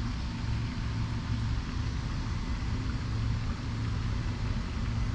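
Steady outdoor background noise: a continuous low rumble with an even hiss above it, and no distinct events.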